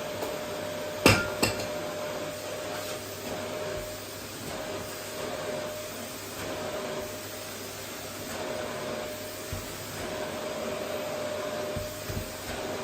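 Vacuum cleaner running steadily on a wooden floor, a constant whooshing hum with a faint steady whine, broken by two sharp knocks about a second in.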